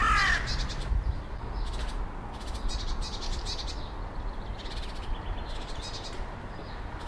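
Birdsong in the open: a short call falling in pitch right at the start, then repeated bursts of rapid high chirping about every half second over a steady low background.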